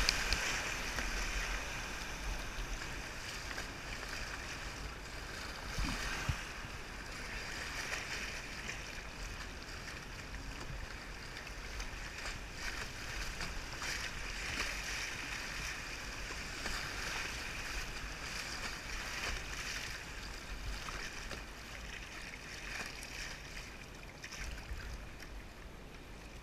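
River water rushing and splashing around a kayak running a rapid, loudest at the start and growing steadily quieter as the water calms.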